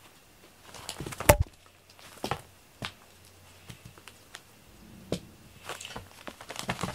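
Scattered taps and thumps of a cat pouncing and scrambling on foam floor mats after a wand toy, with one sharp knock just over a second in.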